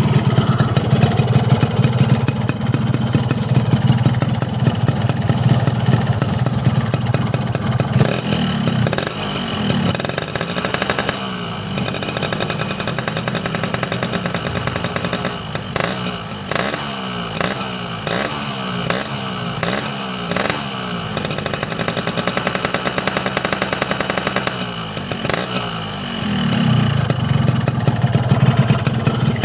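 Cold two-stroke motorcycle engine with an aftermarket Boban C33 exhaust idling, then revved in a string of throttle blips that each rise and fall, from about eight seconds in until it settles back to a steady idle near the end. It is running a rich 'wet' setting, with extra two-stroke oil mixed into the fuel.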